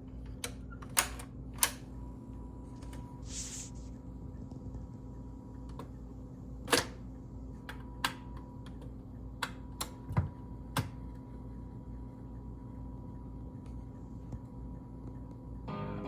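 BSR C197 record changer running with a steady hum, its mechanism giving a scattered series of sharp clicks and knocks as it cycles. Music from the record starts playing near the end.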